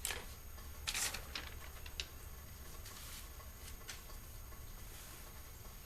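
Small sharp clicks and light rustling from plastic car door trim being handled and worked, with the loudest click about a second in and a few lighter ones after.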